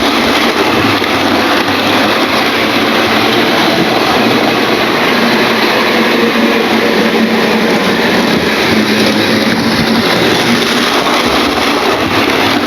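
Bachmann model class 47 diesel locomotive running on a model railway: a steady running noise of its electric motor and wheels on the track, which is not yet pinned down.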